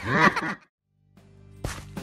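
A short cry with a sliding pitch cuts off about half a second in. After a moment of silence, background music with steady low notes fades in, with a few light ticks.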